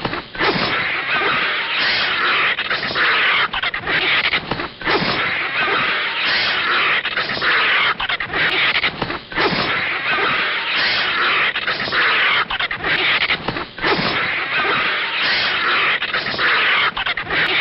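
Animated sound effects of a vulture attacking a snake: loud, raspy animal screeching and hissing in repeated bursts, with the same pattern coming round again about every four and a half seconds.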